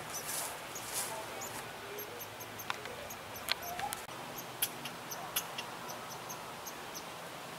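A squirrel chattering: short, high chirps and sharp clicks in irregular runs.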